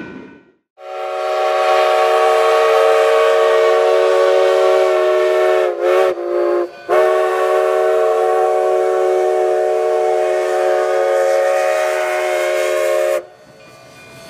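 Locomotive multi-chime horn sounding one long blast, a steady chord of several tones. About halfway through it wavers in pitch and drops out briefly before sounding again, and it cuts off suddenly near the end.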